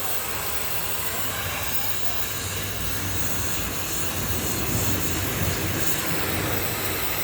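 Oxy-acetylene gas welding torch flame hissing steadily, with a low rumble that grows stronger in the middle.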